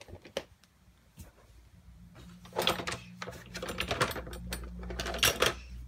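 Dishes and metal kitchen utensils clattering and knocking in a sink during hand dishwashing. Several bouts of rattling come in the second half, over a steady low hum.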